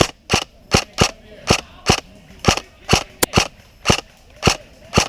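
VFC VR16 electric airsoft rifle firing single shots, about a dozen sharp cracks at an uneven pace of two to three a second.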